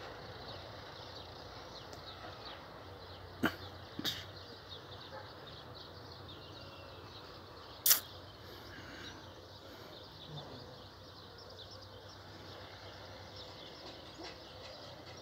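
Outdoor ambience: a steady hiss with many faint, quick bird chirps throughout, and a few sharp clicks about three and a half, four and eight seconds in.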